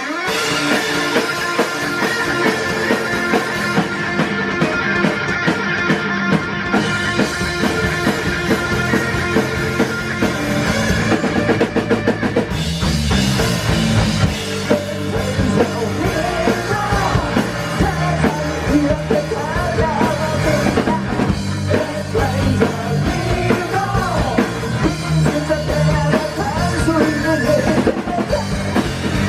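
Rock band playing live with a driving drum kit, bass and guitar; a singer's voice comes in over the band about halfway through.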